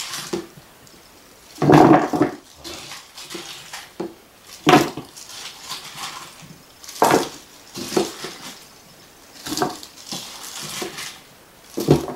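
Handfuls of sliced radish dropped into a plastic container and gloved hands scooping from a stainless-steel bowl: a clatter every second or two, about six in all, with quiet rustling between.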